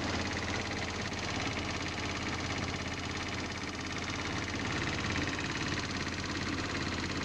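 GY6 single-cylinder four-stroke scooter engine running steadily with a rattle and tapping from the motor. The rattle came on after a brief loss of power at speed; the owner fears a rod knock, and a mechanic's stethoscope places it in the lower part of the motor.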